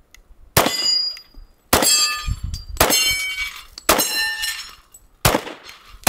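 Kriss Vector .45 ACP carbine fired unsuppressed in slow semi-automatic shots, about one a second. Each shot is followed at once by the ringing of a struck steel target plate.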